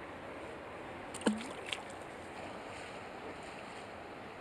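Steady rush of flowing creek water, with a short sharp knock a little over a second in and a smaller click about half a second later.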